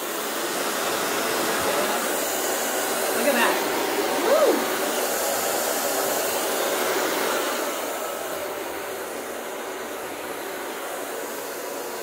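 Compact hair dryer with a brushless motor running, a steady rush of blown air, with a short wavering tone about four seconds in and a slight easing in level in the second half.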